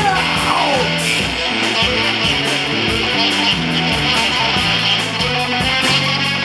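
Live rock band playing an instrumental passage: electric guitars strumming over bass and drums. A sung note slides down and trails off about half a second in.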